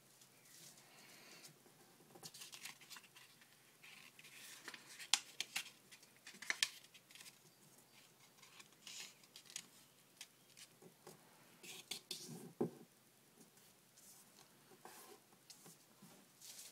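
A sheet of paper being folded and creased by hand: faint, irregular rustling and crinkling with short sharp crackles, loudest about five to seven seconds in and again around twelve seconds.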